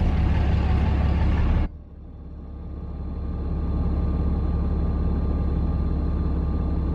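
Pickup truck engine idling, heard from inside the cab. Outside noise comes in over it through the open driver's door until, about a second and a half in, the door shuts and the noise cuts off suddenly, leaving the steady low idle.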